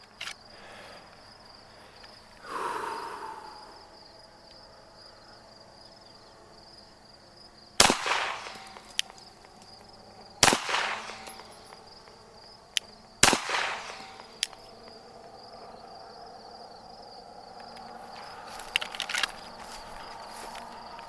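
Three 9mm pistol shots from a Glock 34, spaced about two and a half seconds apart, each followed by a ringing echo. A steady high chirr of crickets runs underneath.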